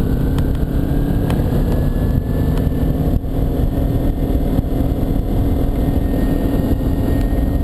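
2009 Kawasaki Ninja 250R's parallel-twin engine running under way. The engine note climbs slightly over the first few seconds, then holds steady.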